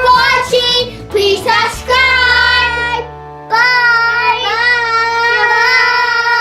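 A child singing a melody over backing music, ending in a long held note from about three and a half seconds in.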